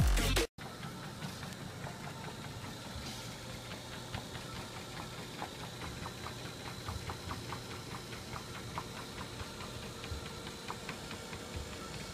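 Electronic dance music cuts off about half a second in; then a small electric treadmill runs with a steady motor hum, with light, irregular ticks from a cat's paws stepping on the moving belt.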